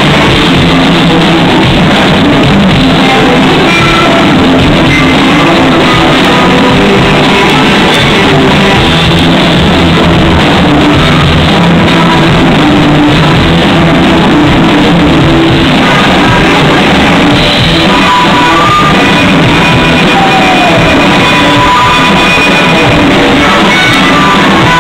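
A live band playing loud rock-style music with guitar and drums, with singing or shouting over it. The recording is overloaded and muffled, with the top end missing.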